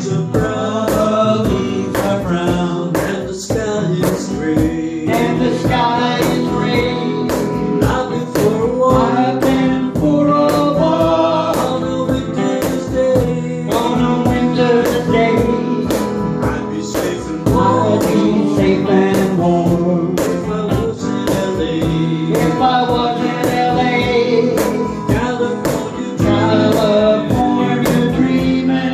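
A small acoustic-electric band playing live: an orange hollow-body electric guitar and a strummed acoustic guitar over a steady hand-played cajon beat, with a man singing.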